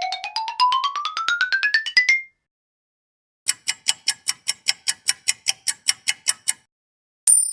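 iPhone sound effects played one after another. First a rapid pulsing tone that climbs steadily in pitch and cuts off about two seconds in. After a short pause comes a run of about sixteen bright clicks, about five a second, and near the end a high bell-like chime that rings on.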